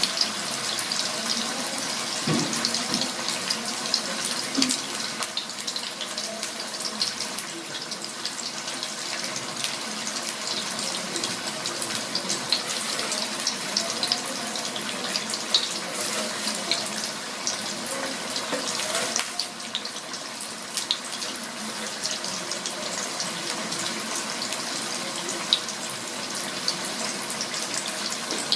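Water running steadily from a kitchen tap into a sink, with scattered small splashes and clicks, as when food is rinsed.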